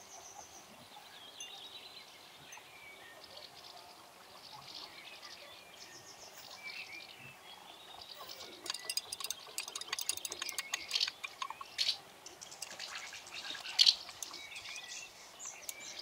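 Birds chirping in the background; from about halfway, a metal spoon clinks rapidly against a drinking glass of water as it is stirred, with one louder clink near the end.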